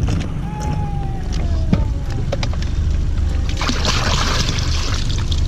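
Water pouring and splashing for a second or so, about three and a half seconds in, as a bait bucket of live bluegill is emptied into a boat's live well. A few light knocks come before it, over a steady low rumble.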